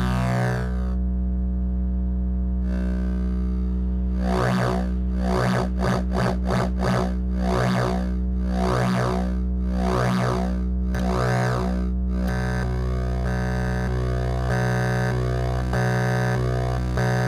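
Modular synthesizer drone from a Dronebank module, run through a Tidal Wave wave folder whose folding is swept by the module's internal LFO. A steady low drone runs throughout. Through the middle its bright overtones swell and fade in a pulsing rhythm, and near the end it settles into a buzzier, steadier tone.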